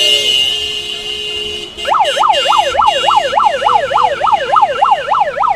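Electronic siren sounding a fast yelp, about four rising-and-falling sweeps a second, starting about two seconds in after a steady high tone fades away.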